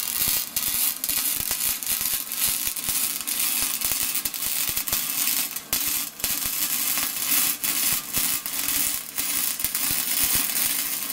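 MIG welding arc crackling and sizzling as a bead is run around the inside of a steel bearing race; the bead is meant to shrink the race so it falls out of its seat. There is a short break about six seconds in, and the sound cuts off at the very end.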